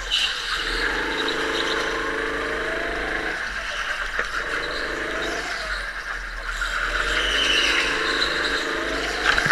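Go-kart engine heard from the driver's seat, rising in pitch three times on the straights and dropping back into the corners, with tyres squealing in the turns.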